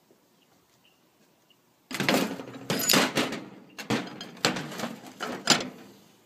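A run of loud scrapes and knocks starting about two seconds in, about six of them over four seconds, each fading quickly.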